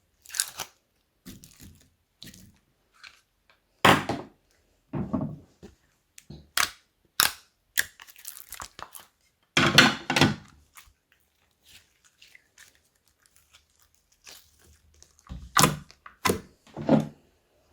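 Slime being squished, stretched and pressed by hand: irregular crackles, pops and crunches with short quiet gaps between them, the loudest about four seconds in and around ten seconds in.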